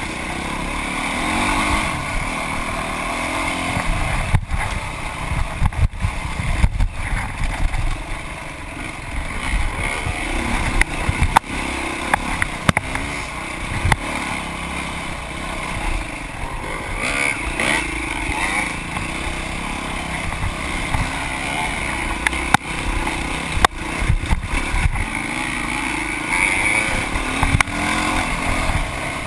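Dirt bike engine ridden hard over a trail, revving up and down through the gears, with wind buffeting the on-bike camera and scattered knocks from bumps.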